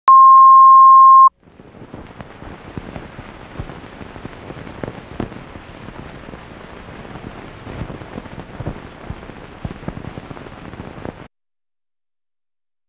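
Videotape leader audio: a loud, steady reference line-up tone for about a second, then about ten seconds of crackling hiss with scattered pops that cuts off suddenly.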